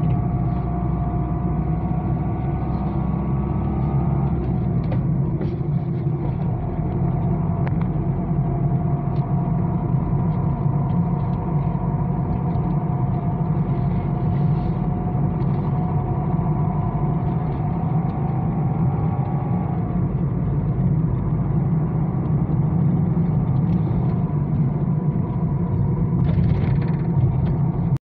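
Steady rumble of a moving road vehicle, with a faint whine that drifts slowly in pitch; it cuts off abruptly at the very end.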